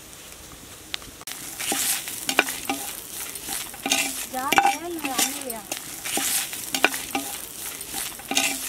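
A metal spatula stirring and scraping grated coconut, dried red chillies and spices around a clay cooking pot, in rasping strokes that start about a second in, some with a short squeal of metal on clay.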